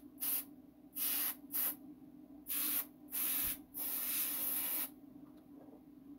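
Paasche VL airbrush spraying paint in about six short hissing bursts as the trigger is pressed and released, the last about a second long, over a steady low hum.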